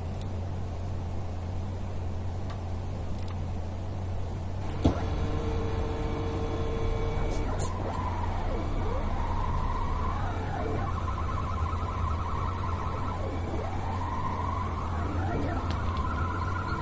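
A pen plotter's two NEMA 17 stepper motors whining as they drive the pen carriage. The pitch holds steady on straight runs and slides down and back up as the pen traces the rounded corners. There is a sharp click about five seconds in, just before the motors start, over a steady low hum.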